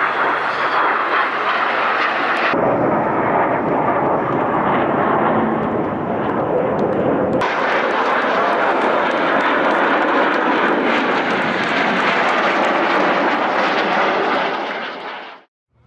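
Steady jet noise from BAE Hawk T1 display jets flying a pass. The sound changes abruptly about two and a half seconds in and again at about seven and a half seconds, then fades out just before the end.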